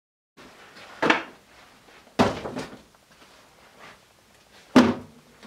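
Stiff paper shopping bags being handled and set down on a table: three short, sharp paper knocks, about one, two and nearly five seconds in, the last the sharpest.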